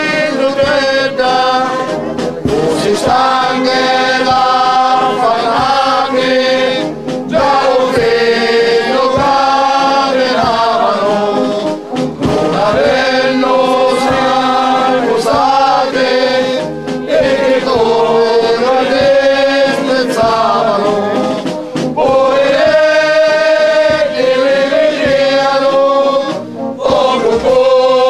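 A group of men singing a religious chant together, unaccompanied, in sustained phrases of about five seconds with a short breath between each.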